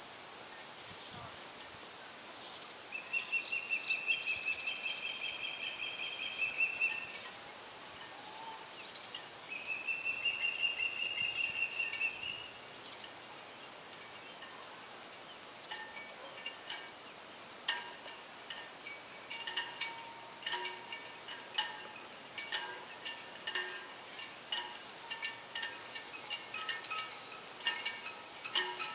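An osprey giving a long run of high, whistled calls twice, each lasting three to four seconds. From about halfway in, scattered light metallic clinks and chimes follow, many short rings in no steady rhythm.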